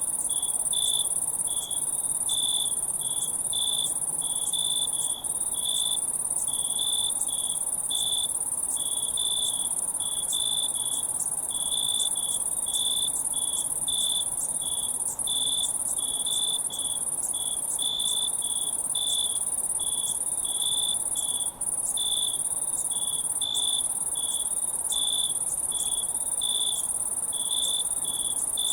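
Crickets chirping in a steady night chorus: short chirps repeating a few times a second over a continuous high-pitched insect trill.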